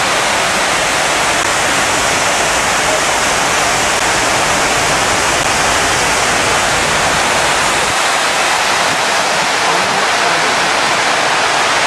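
Steady loud rush of water from the 9/11 Memorial reflecting pool's man-made waterfall, a wide curtain of water pouring down the stone walls into the basin.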